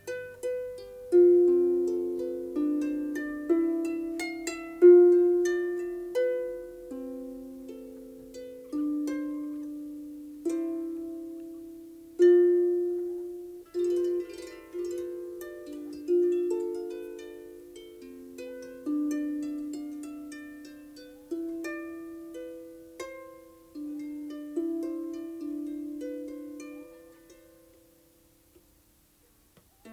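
Harp music: a slow melody of single plucked notes, each ringing out and dying away, with the playing stopping near the end.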